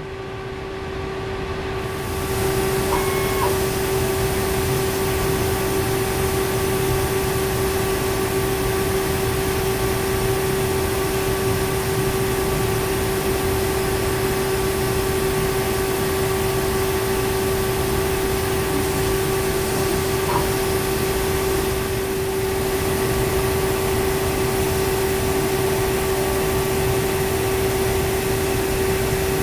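Laser cutter running as it cuts 6 mm acrylic: a steady mechanical drone with a constant hum, swelling in over the first two seconds and then holding level.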